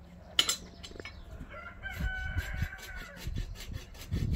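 A rooster crows once, a long call starting about one and a half seconds in, after a sharp click near the start. Rhythmic scraping strokes and low thumps run underneath.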